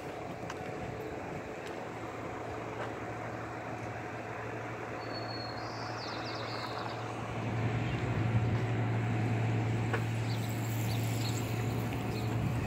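A steady low engine hum that gets louder about two-thirds of the way in, over outdoor background noise, with a short bird chirp in the middle.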